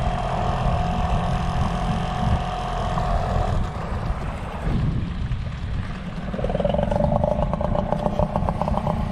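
Outboard motor of an inflatable boat running slowly in shallow water. Its steady whine breaks off about three and a half seconds in and comes back lower, with a fast flutter, for the last few seconds. Wind buffets the microphone throughout.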